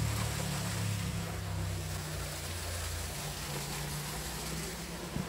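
Steady rush of falling water from a small waterfall into its rock pool, with a low rumble underneath that is strongest in the first half.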